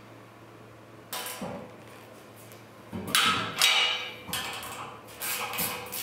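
Aluminium extrusion frame being handled and taken apart: a few sudden metallic clanks and scrapes, about a second in, loudest around three to four seconds in, and again near the end, over a faint low hum.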